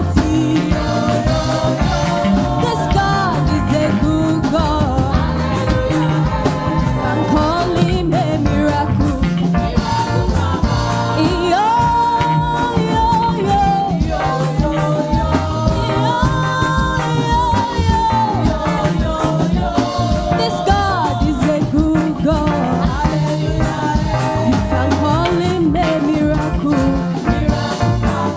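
Gospel praise-and-worship music with singing over a steady beat, played by a church band.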